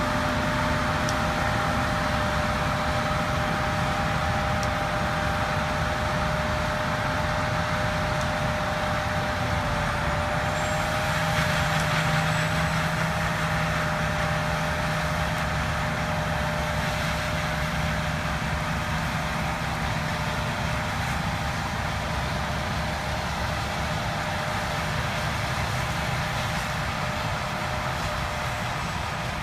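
John Deere S-series combine running steadily while harvesting wheat, a continuous machine drone with a steady whine over it.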